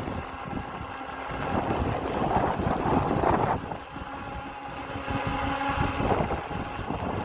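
Wind buffeting the microphone in gusts, swelling about two seconds in and again near the end, over the steady electric whine of an e-bike's motor.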